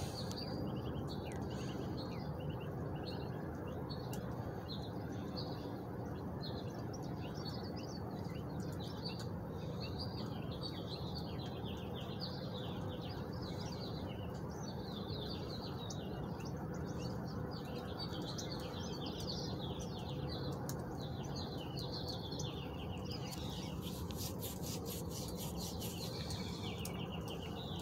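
Small birds chirping over and over in short, quick notes over a steady low background noise, with a brief run of scratchy clicks near the end.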